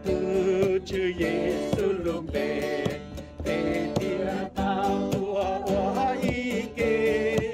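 A worship song sung to a strummed acoustic guitar, with the singing voice rising and falling over a steady strummed rhythm.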